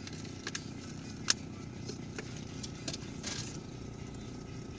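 Steady low engine and road rumble inside a moving car, with a few light clicks and one sharp click about a second in.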